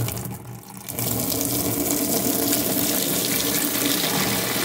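Tap water pouring into a plastic bucket holding makeup sponges and baby shampoo, working up suds. The flow is weaker for the first second, then runs as a strong, steady stream.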